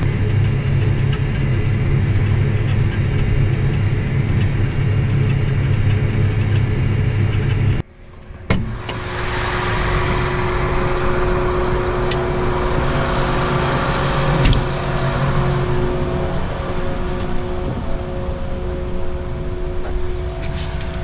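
A vehicle engine running steadily while driving on the road. About eight seconds in, the sound cuts off abruptly and gives way to a different steady engine drone with a few clicks.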